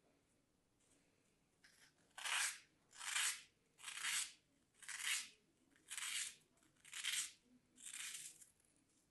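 A craft knife blade slicing through a thin slab of kinetic sand: seven scratchy, crunchy cuts, about one every 0.8 s, starting about two seconds in.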